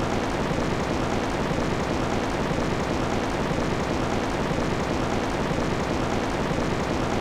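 Steady rushing noise, heaviest in the low and middle range, with no pitch and no breaks: the masking noise bed of a subliminal audio track.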